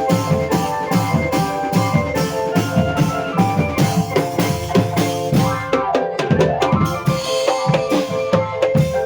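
Music driven by a fast, steady drum beat of about four strokes a second, with sustained melodic tones held over it, more prominent in the second half.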